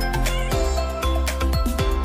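Background music with a steady beat over held notes and a bass line.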